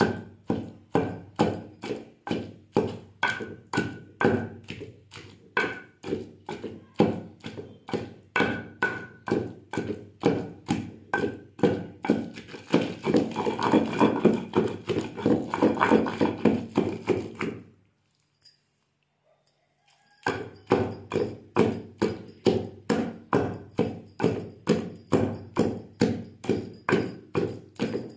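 A pestle pounding peanut chutney in a stone mortar: a steady rhythm of thuds at about two to three strokes a second, louder and denser for several seconds past the middle. The pounding stops for about two seconds, then resumes at the same pace.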